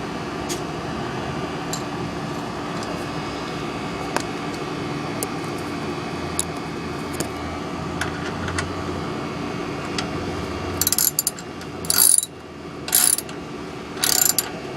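Ratchet socket wrench clicking in four short bursts of strokes in the last few seconds, tightening the oil pan drain plug on a 2000 Ford F-150, over a steady background hum.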